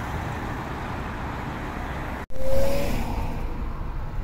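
Steady traffic and engine noise from cars running along the road. About two seconds in it drops out for an instant and comes back louder, with a short steady tone.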